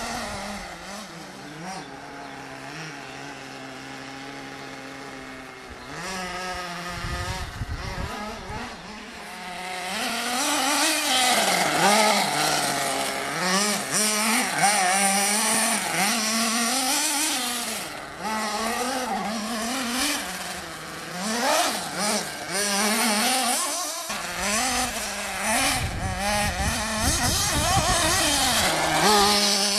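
Small nitro engine of a radio-controlled off-road car, idling steadily at first, then revving up and down over and over, loud and high-pitched, as the car is driven hard around the track.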